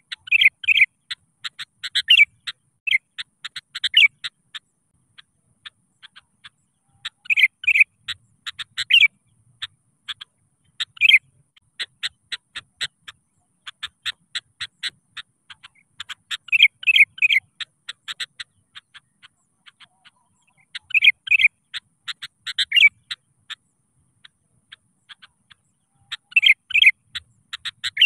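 Sooty-headed bulbul (kutilang) calling vigorously: a steady run of short, quick chirps, broken every four or five seconds by a louder group of two or three whistled notes.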